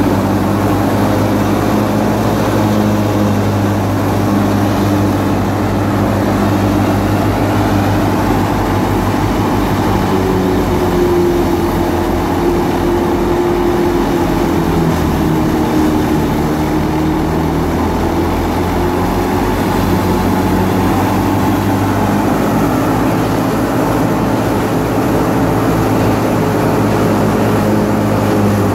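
Tractor-driven Al-Shehbaz wheat thresher running steadily while wheat stalks are fed into it. It is a loud, continuous machine drone of the tractor engine and threshing drum, with its pitch drifting slightly.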